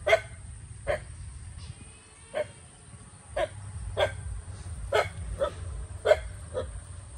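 A dog barking repeatedly in short single barks, roughly one a second, with a brief pause about a second in.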